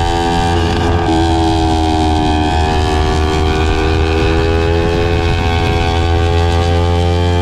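250 cc parallel-twin sport motorcycle engine running under way at steady revs. Its note shifts about a second in and again around two and a half seconds, then rises slowly as it picks up speed.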